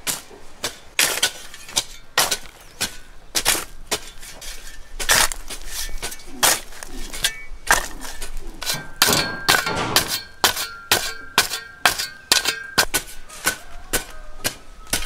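A rapid, irregular series of sharp knocks and clatter from hard objects being struck or handled, two or three a second, with a faint steady high ringing tone through the middle part.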